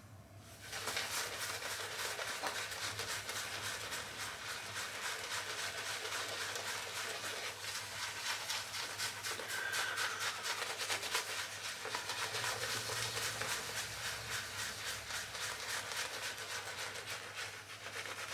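Shaving brush with a Manchurian badger knot swirling and scrubbing soft shaving soap into a lather, giving a steady wet, brushy swishing.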